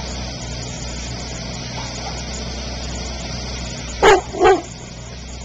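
A dog barks twice, about half a second apart, some four seconds in, over the steady running of a mini excavator's engine.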